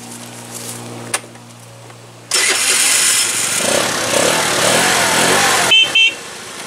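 Small scooter engine starting on its electric push-button starter about two seconds in and running loudly for about three seconds, then dropping to a quieter running sound near the end. The button now starts it, a sign that the starter button fault is cured.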